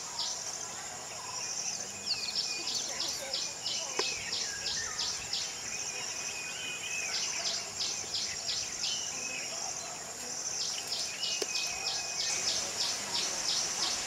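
Insects chirping in runs of quick, high, evenly spaced pulses, several runs a few seconds apart, with birds calling in short chirps over a steady outdoor background.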